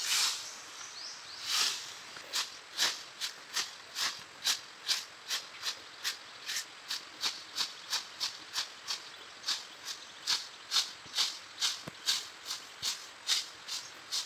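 Long-handled twig broom sweeping dry fallen leaves across asphalt: a steady run of short swishing strokes, a little slower at first, then about two to three a second.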